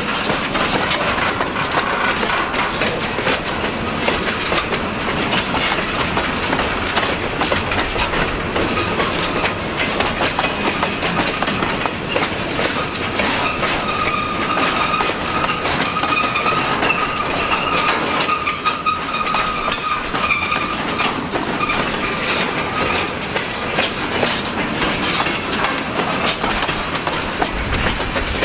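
Freight cars of a train rolling past, wheels clicking steadily over the rail joints. A faint high wheel squeal runs through the middle stretch.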